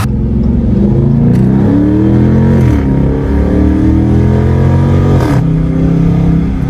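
Dodge Charger R/T's 5.7-litre Hemi V8 being revved: the pitch climbs for about a second, falls back, holds, and dips again about five seconds in, then cuts off abruptly.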